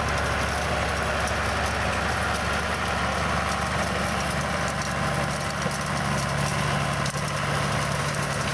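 John Deere 3050 tractor's diesel engine running steadily as it pulls a rotary hay rake, a constant low hum under a haze of machine and field noise, growing a little stronger in the second half.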